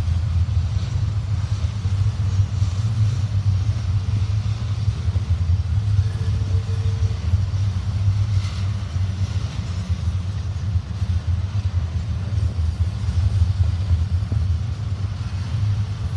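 Double-stack container freight train rolling past, a steady low rumble of its wheels on the rails.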